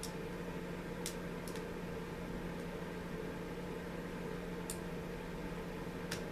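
A few light, sharp clicks of small parts and hand tools being handled during reassembly, spaced irregularly, over a steady low hum.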